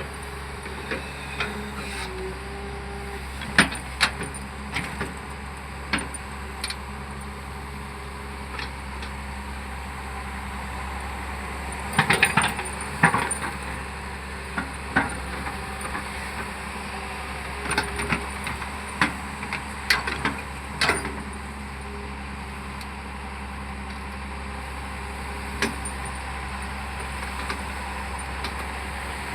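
Hyundai excavator's diesel engine running steadily under work, with scattered sharp knocks and clanks, several bunched together about twelve seconds in and again around eighteen to twenty-one seconds.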